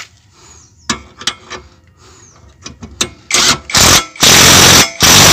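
A few sharp clicks, then four loud bursts of an impact wrench driving home the lower mounting bolt of a rear shock absorber until it is tight.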